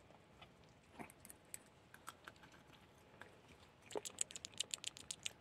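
Small dog being fed a treat: faint scattered clicks, then a quick run of light clicks, about nine a second, for just over a second near the end.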